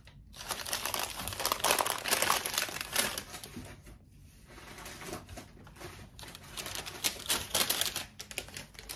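Crinkling wrapping of a small advent package being unwrapped by hand. It comes in two busier spells, one in the first three seconds and another about seven seconds in, with lighter rustling between.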